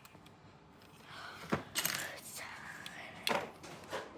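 Handling of Lego packaging: light rustling with a few sharp clicks and taps.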